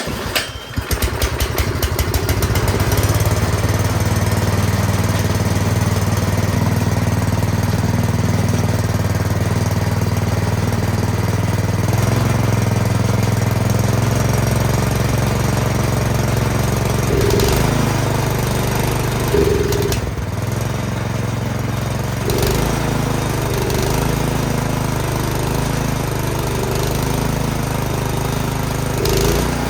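Craftsman snowblower's small four-stroke engine catching and then running steadily; its note shifts a couple of times and drops about two-thirds of the way through.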